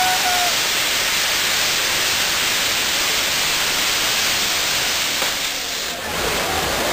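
Ground fireworks (nar tal-art) burning and spraying sparks with a loud, steady hiss. A brief thin whistle-like tone sounds right at the start, and the sound thickens with a deeper rumble about six seconds in.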